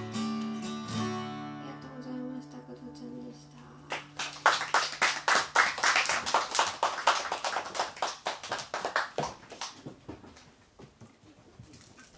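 An acoustic guitar's final chord rings and fades away. About four seconds in, the audience starts applauding; the clapping is loudest for a few seconds and then dies away near the end.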